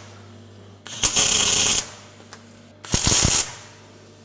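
MIG welder laying two short tack welds, each a crackling burst under a second long, about two seconds apart, with the welder's steady hum between them. It is set high, at step 9, for 2 mm sheet.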